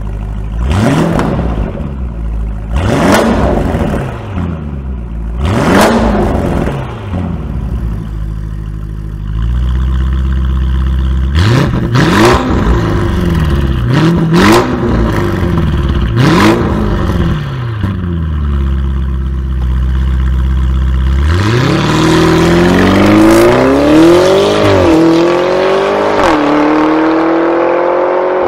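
High-performance car engine revved hard several times in quick blips, each rising and falling in pitch, with sharp cracks from the exhaust as it comes off the throttle. About 21 seconds in it pulls away under full acceleration, pitch climbing and dropping twice at gear changes.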